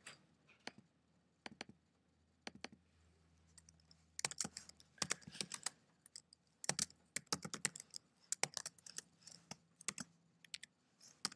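Typing on a computer keyboard: a few scattered clicks, then quick, uneven keystrokes from about four seconds in.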